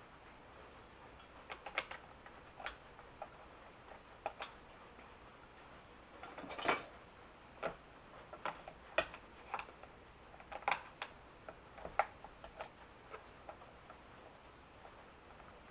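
Irregular light clicks and taps of hand tools and small metal parts being handled during work on a Homelite XL chainsaw's choke, with a longer scrape about six and a half seconds in.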